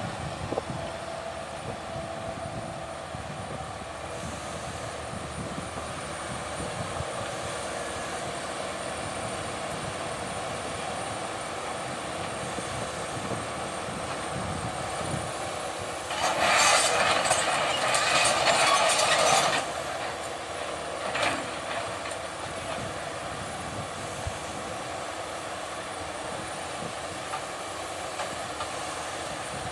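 Heavy machinery running steadily, with a loud rushing, noisy burst lasting about three seconds a little past the middle and a shorter one about two seconds later.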